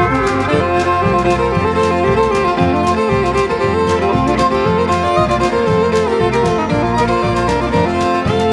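Instrumental country music: a fiddle playing a melody over guitar and a steady beat.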